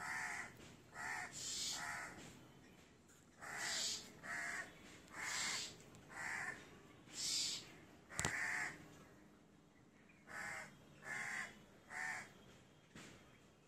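Crows cawing repeatedly, about a dozen harsh calls with short gaps between them and a pause of a second or two near the end. A single sharp click about eight seconds in.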